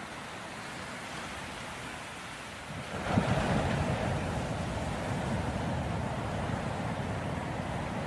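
Ocean waves washing in a steady surf, growing louder about three seconds in and staying up.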